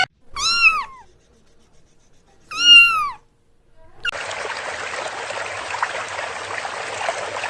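Domestic cat meowing twice, each meow rising then falling in pitch. About four seconds in, a steady hiss begins.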